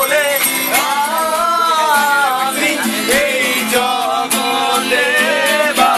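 Acoustic guitar being strummed while a voice sings a Bengali song over it, the sung notes held and gliding.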